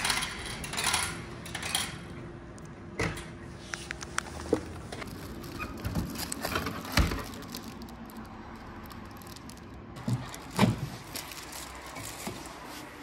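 Handling noises as a plastic-wrapped takeaway bowl is taken out of a vending machine's pickup bay and put into a microwave: rustling plastic, scattered clicks and knocks, and two sharper thumps, about seven and ten and a half seconds in.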